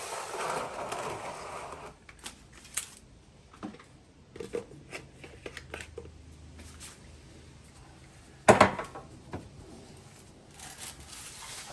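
Handling noise: rustling for about two seconds, then scattered light clicks and knocks, with one loud sharp clank about eight and a half seconds in.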